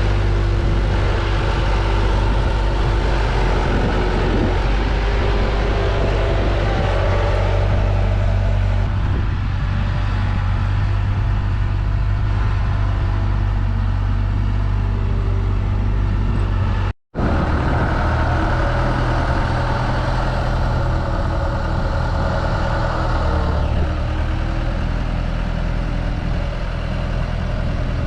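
Diesel engine of a compact earthmoving machine running steadily with a deep, even hum. There is a short break about two-thirds of the way through, after which the engine note is slightly different.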